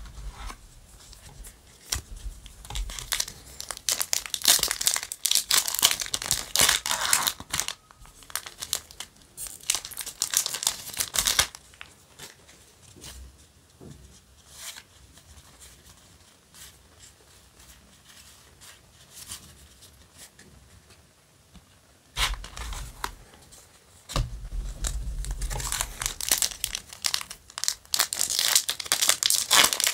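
Foil wrappers of Yu-Gi-Oh! booster packs being torn open and crinkled, in two long stretches of loud rustling. Between them is a quieter spell of trading cards being handled and flipped through.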